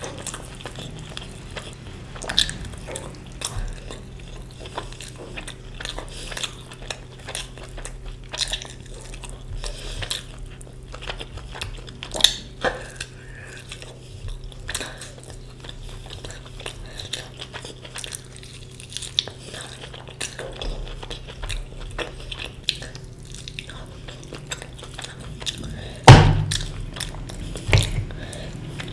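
Close-miked eating: chewing, with frequent small clicks and clinks against a plate. Two louder, sharp knocks come near the end.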